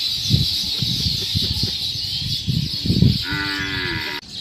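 A cow moos once near the end, a single call of about a second that bends slightly down in pitch. Irregular low rumbling noise runs before it, and a steady high hiss runs underneath.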